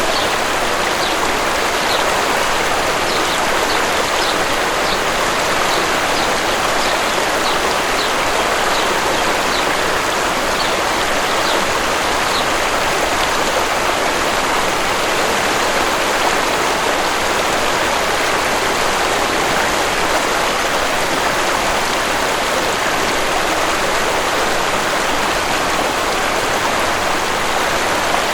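Waterfall rushing steadily, with a small bird giving short, high chirps about twice a second over the first dozen seconds.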